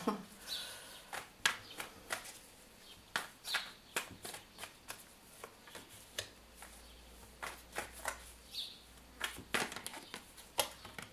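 Tarot cards being handled and dealt from the deck onto a wooden table: irregular short snaps, flicks and taps as cards are drawn and set down.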